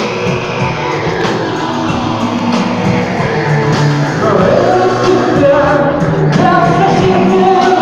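Live shoegaze band playing a song with guitars and singing, growing a little louder about halfway through.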